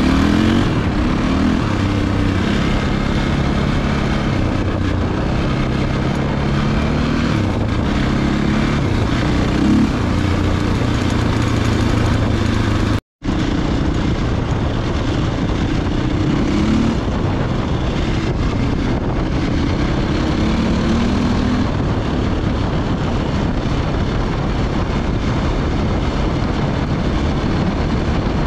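Enduro dirt bike engine running as it is ridden, its revs rising and falling with the throttle. The sound cuts out completely for an instant about halfway through.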